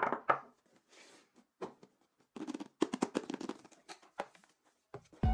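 Two sharp knocks of fingers tapping on a wooden tabletop, then light clicks, knocks and rustling as a cardboard camera box is handled and set down on the table, busiest about two and a half to three and a half seconds in.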